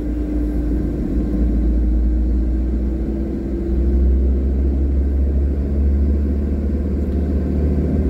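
Car driving along a paved road, heard from inside the cabin: a steady low rumble of engine and tyres with a faint engine hum, growing a little louder about four seconds in.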